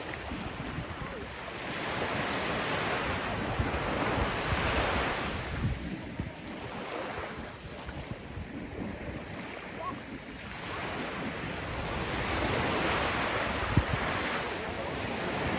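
Sea waves breaking and washing up a beach, the surf swelling twice, with wind rumbling on the microphone. A single sharp tap near the end.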